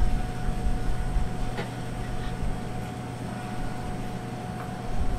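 Steady hum of commercial kitchen machinery, a constant drone with one sustained tone over a low rumble, with a couple of faint clicks.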